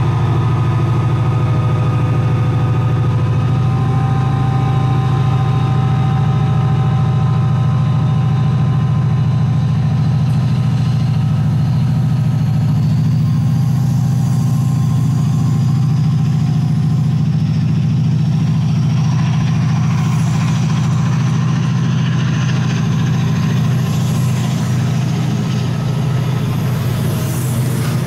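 Class 68 diesel-electric locomotive's Caterpillar V16 engine running under load as it pulls away with a train of Mk3 coaches, with a high whine rising slowly in pitch as it gathers speed. Near the end the passing coaches add a rougher rolling noise.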